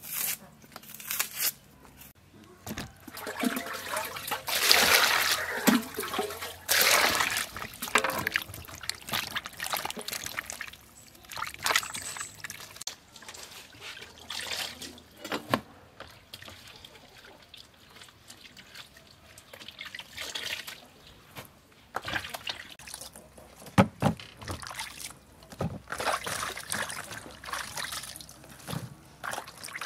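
Hands washing vegetables and mushrooms in a plastic bowl of water: water sloshing, splashing and trickling in irregular bursts, busiest between about four and eight seconds in. A single sharp knock comes near the end.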